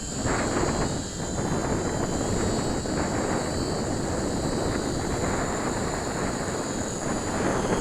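Steady high whine of a micro EasySky 525mm P-38's twin electric motors in flight, over wind noise on the microphone.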